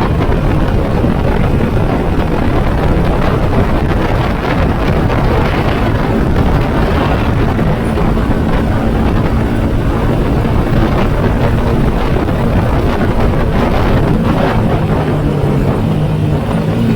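Yamaha Sniper 150's single-cylinder four-stroke engine running while the motorcycle is under way, mixed with wind rushing over the microphone. A steadier engine note comes through near the end.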